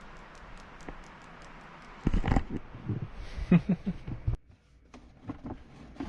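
Objects being handled and moved around: a burst of clunks, knocks and rustling from about two seconds in that cuts off abruptly, then a few light clicks.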